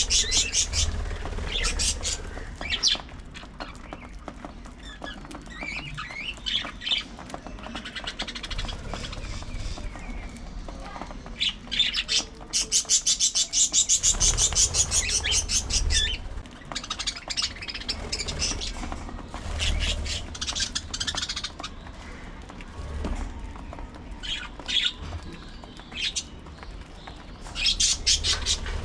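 A flock of budgerigars chattering and chirping with rapid squawky calls, densest in a burst of quick-fire calls about halfway through.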